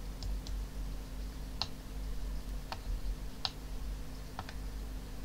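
About seven short, sharp clicks of a computer mouse and keyboard, a couple of them in quick pairs, over a steady low electrical hum.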